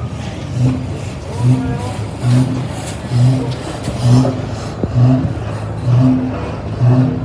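An old engine running slowly, its exhaust giving a steady low beat a little over once a second.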